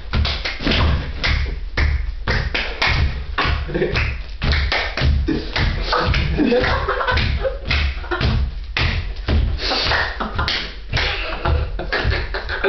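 Improvised mock tribal chanting with vocal percussion over a steady thumping beat of about two strokes a second.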